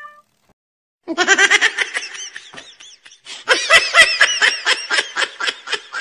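Laughing sound effect: a voice laughing in quick, rhythmic 'ha-ha' bursts. It starts about a second in, breaks off briefly near the middle, then laughs again.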